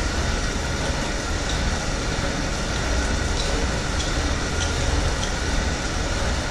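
Air bike (fan exercise bike) pedalled at a slow, steady pace: the fan gives a steady whooshing rumble, with a few faint ticks now and then.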